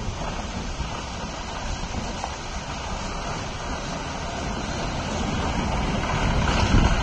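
Heavy diesel lorry approaching slowly over a rough, waterlogged road, its engine and tyre rumble growing louder over the last few seconds, with wind buffeting the microphone.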